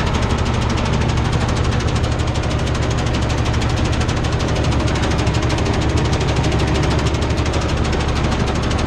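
Old tractor's diesel engine running steadily at working revs, heard from inside the cab, with a fast, even firing beat.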